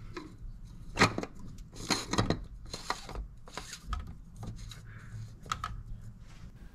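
Oil filter housing cap being screwed on by hand, giving scattered light clicks and scrapes as it is turned and seated on its threads.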